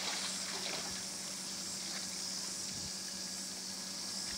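Steady high-pitched hiss of outdoor background noise, with a faint steady low hum beneath it and a few faint water splashes from a swimmer in the pool.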